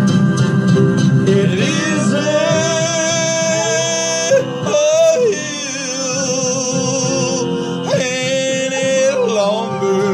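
Australian Shepherd howling in long, wavering held notes along with a country song with guitar and a man singing.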